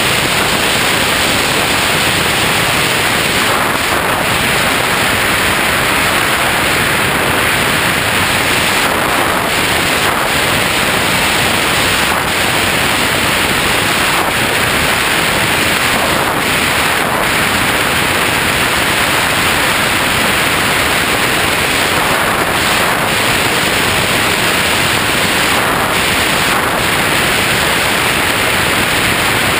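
Steady, loud hiss on the onboard recording of a Bixler RC plane in flight, unchanging throughout, with no motor whine standing out.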